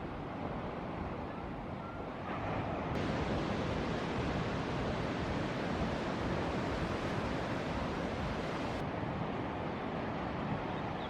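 Ocean surf breaking on a reef: a steady rush of whitewater with wind on the microphone, swelling louder about two seconds in.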